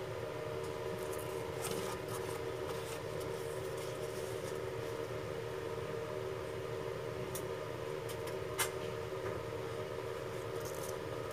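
Steady hum of an electric motor running, with a few light clicks from handling a rubber sole.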